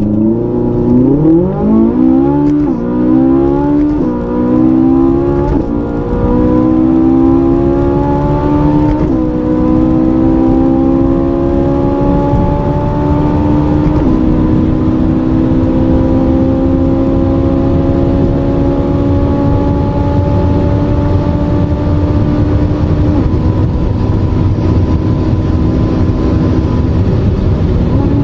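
Ferrari 458 Italia's 4.5-litre V8 at full throttle from a standstill. The engine note climbs through each gear and drops at each upshift, quickly in the low gears and more slowly later, and holds a high steady pitch in top gear near the end as the car nears 300 km/h.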